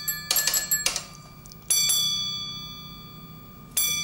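A signal box block bell rings out a bell code. There are a few quick knocks early on, then a single strike about a second and a half in that rings and dies away slowly, and after a long pause another strike near the end. The signaller hears it as a "sarcastic" ring from the next box: a two, then a very long pause on a one.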